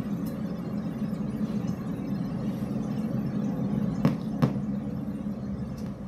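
Steady low ambient rumble, with two sharp clicks about a third of a second apart roughly four seconds in. No air-horn tone is heard.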